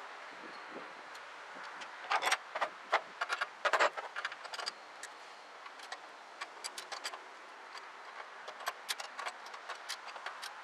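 Irregular metallic clicks and clinks of hand tools and small hardware during removal of a carburetor, dense and loudest about two to four seconds in, then scattered, sparser clicks.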